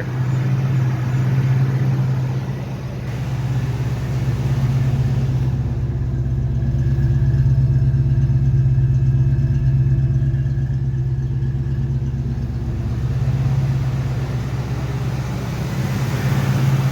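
Fox Body Mustang engine idling steadily and evenly, its rough idle cured now that carbon holding the EGR valve open has been cleared.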